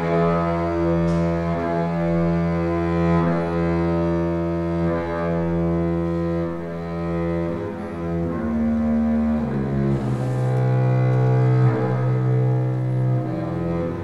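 Solo double bass played with the bow: slow, long-held low notes, moving up to a higher note a little past the middle.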